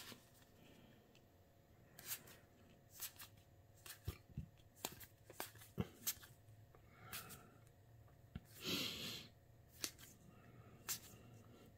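Star Wars Unlimited trading cards being flipped through by hand, card sliding over card. Faint, scattered clicks and short scratchy slides come irregularly, with one longer rustle about three-quarters of the way through.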